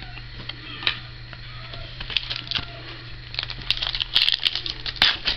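Foil wrapper of a Panini Contenders football card pack crinkling and tearing as it is opened by hand. The crackling grows denser and louder from about three seconds in.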